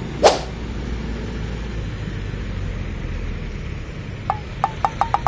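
Steady rumble of road traffic from trucks and motorcycles passing at a junction, with a short sharp noise about a quarter second in. Near the end a run of short high beeps starts, coming faster and faster.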